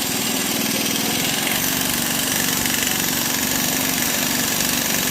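A small engine or motor running steadily with a fast, even pulse and a strong hiss.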